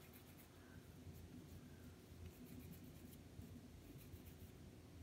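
Near silence, with faint soft rubbing of palms rolling a small ball of semolina şekerpare dough.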